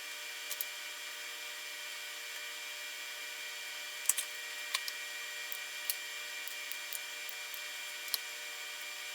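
Light, sharp clicks and ticks of small hand tools working diode leads on a circuit board: a pair about half a second in, a cluster around the middle and a single one near the end, over a steady hiss with faint high electrical whines.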